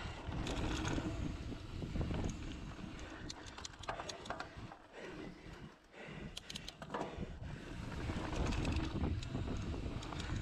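Mountain bike rolling fast down a dirt singletrack: a steady rumble of knobby tyres on dirt and wind on the microphone, broken by bursts of rattling clicks from the bike over bumps.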